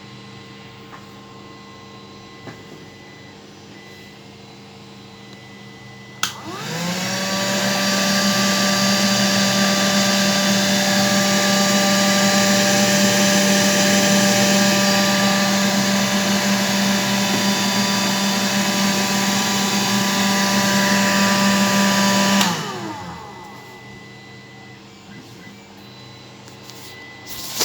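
Small vacuum cleaner motor running off a 24 V bench power supply. It is switched on with a click about six seconds in, spins up with a rising whine, runs steadily for about sixteen seconds, then is switched off and winds down.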